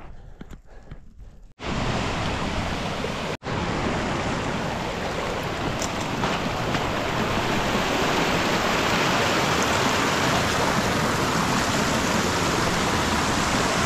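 Steady rushing water, like a stream, starting abruptly about one and a half seconds in, with a brief dropout soon after, and holding even. Before it, softer uneven wind noise.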